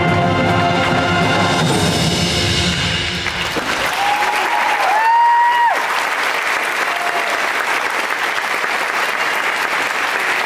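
Marching band of brass, woodwinds and percussion holding the final chord of its piece, which cuts off about three and a half seconds in. Audience applause follows, with a loud whistle rising in two steps about five seconds in.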